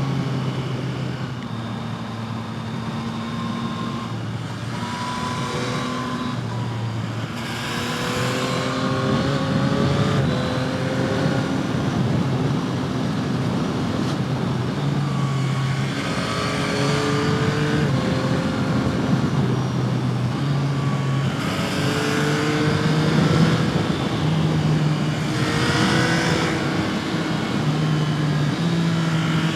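A Yamaha MT-09's 890 cc three-cylinder engine and exhaust under riding load. The pitch climbs in steps as it accelerates through the gears, then drops back, several times over.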